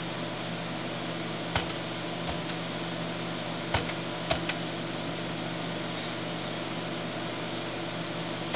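Steady fan hum from running computer equipment, with a few faint clicks in the first half.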